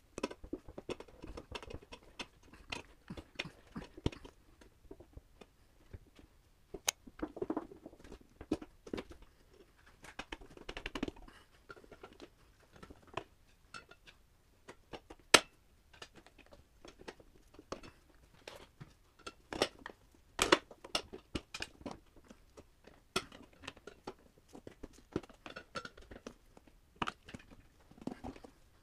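A new motorcycle front tire being worked over the rim of its wheel by hand: irregular rubber creaks, scrapes and knocks against the rim, with a few sharper knocks, the loudest about halfway through.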